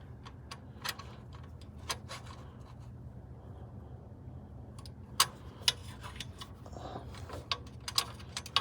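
Scattered sharp clicks and light metallic taps from hand tools working on the truck, a few spaced out at first, then a quick flurry near the end, over a steady low hum.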